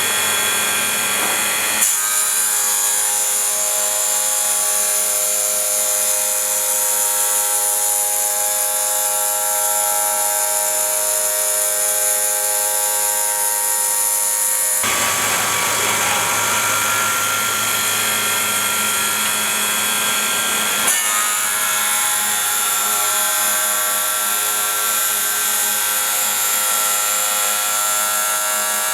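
Diamond blades of a CNC double-blade ceramic tile cutting machine running, a steady whine with a strong hiss that changes character abruptly about 2 seconds in, again near the middle, and a few seconds later.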